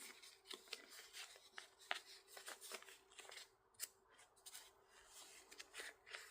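Faint rustling and scattered light clicks of hands handling fabric wrap and small tools at close range.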